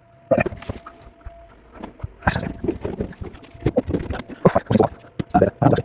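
Irregular knocks and clattering as things are handled and moved around in a kitchen cupboard, with several sharper knocks in the second half.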